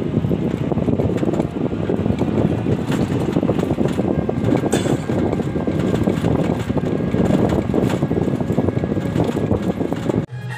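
Motor vehicle running on a road, a steady rumble of engine and road noise that cuts off suddenly near the end.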